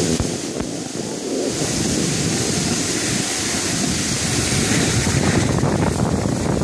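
Wind buffeting the phone's microphone while skiing downhill, a steady low rumble, over the hiss of skis sliding on groomed snow, which is brightest in the middle.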